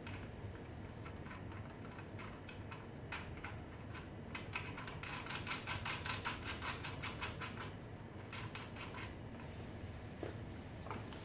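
Rapid, light clicking from hand tools and small parts being worked, thickest in a dense run through the middle few seconds.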